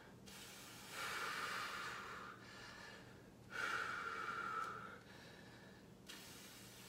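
A man breathing hard from exertion during a resistance-band exercise, with two long, heavy exhales: one about a second in and another about three and a half seconds in.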